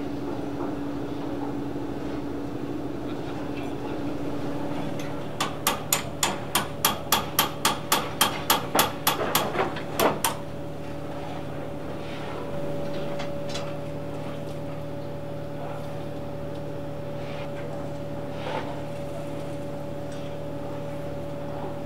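A run of about fifteen sharp metal hammer blows, three to four a second, lasting about five seconds. A steady mechanical hum carries on underneath.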